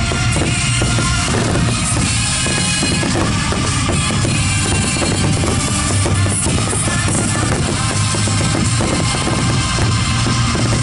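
Finale barrage of aerial firework shells bursting in rapid, overlapping succession: a dense, unbroken stream of bangs and crackles, with music playing underneath.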